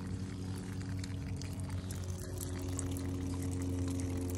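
Water of a homemade fountain pouring down a steel panel over rocks into a basin, running steadily, with a steady low hum underneath.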